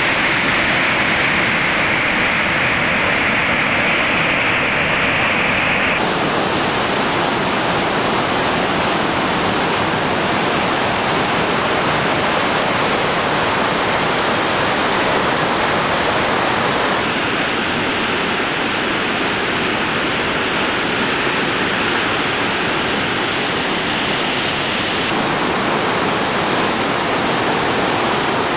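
Mountain river in full spate after a deluge, a loud steady rush of churning white water cascading over rocks. Its tone changes abruptly a few times.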